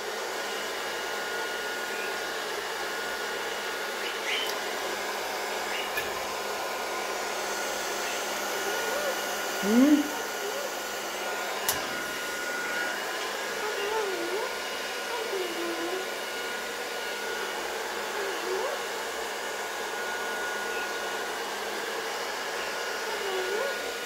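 Hand-held Revlon hair dryer running steadily, a rush of air with a thin, steady whine, blowing on a wet cockatoo's feathers. About ten seconds in, a short rising voice-like call sounds over it.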